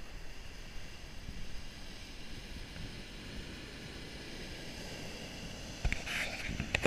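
Sea surf breaking and washing up a pebble beach, with wind buffeting the microphone. About six seconds in it grows louder, with crackling clicks.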